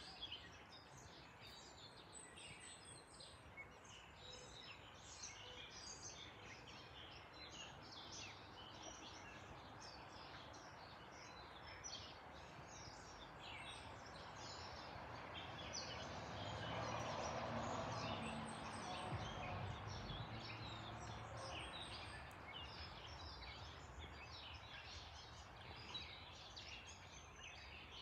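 Small birds chirping throughout, over the faint distant rumble of a Boeing 747-8 jet airliner high overhead, which swells for several seconds in the middle and then fades.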